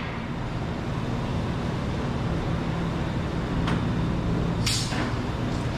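A steady low mechanical hum, with a faint click past the middle and a short hiss near the end.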